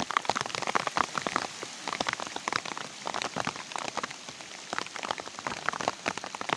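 Rain falling, with many close, irregular drops ticking sharply on a surface near the microphone over a steady hiss.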